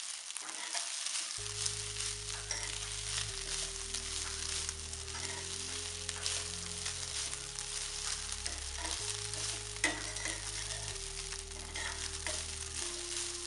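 Cooked rice and sprouted fenugreek (methi) sizzling in a hot pan as they are stir-fried, with occasional sharp scrapes and taps of the spatula against the pan.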